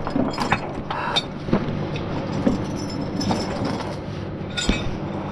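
A vehicle engine idling steadily, with scattered light metallic clicks and clinks over it.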